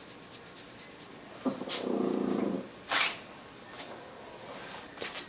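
A Siamese cat gives a short, low, rough call lasting about a second, about a second and a half in, followed by a brief breathy puff.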